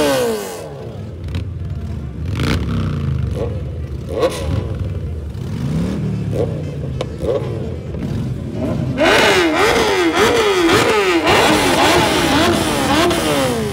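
Several superbike engines being revved, their pitch sweeping up and down again and again. From about nine seconds in comes a louder, quick run of rev blips, one after another.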